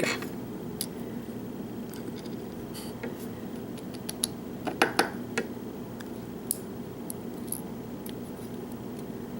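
Light metallic clicks and taps as small lock pins and springs are worked out of a disassembled lock's pin chambers, with a small cluster of clicks about five seconds in, over a steady low hum.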